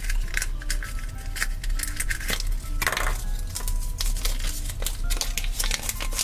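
Plastic Kinder egg capsule clicking and scraping as it is pried open, followed by a small folded paper packet crinkling as it is handled and unfolded. Quiet background music plays underneath.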